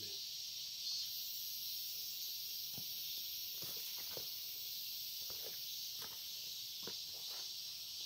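A steady high-pitched insect chorus, with a few faint soft rustles of footsteps and brushing through the plants.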